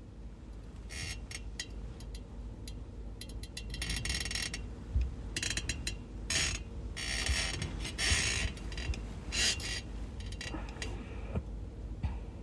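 A sleeper shifting and turning over in bed: bedding rustling in irregular bursts for several seconds, with a soft thump about five seconds in.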